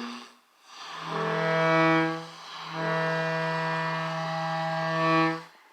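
Interference from a tiny solid-state Tesla coil heard through an AM superheterodyne radio: a low, steady buzzing tone, in two stretches of about one and a half and three seconds with a short break between.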